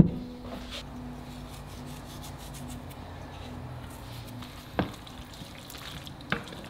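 Wooden spoon stirring thick, chunky chicken pot pie filling in an enamelled cast-iron Dutch oven, with a soft wet scraping and two sharp knocks of the spoon on the pot, about five and six seconds in.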